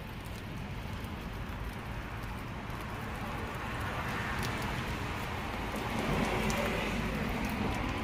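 Steady rain falling, with scattered drops ticking close by; the rain noise swells a little in the second half.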